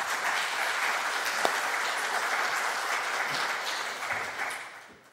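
Audience applauding, a steady patter of many hands that dies away near the end.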